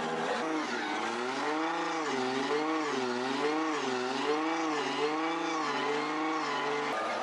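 Drift car's engine running in gear, driving the jacked-up rear wheel as it spins off the ground, its revs rising and falling smoothly about once a second. Near the end it settles to a steadier pitch.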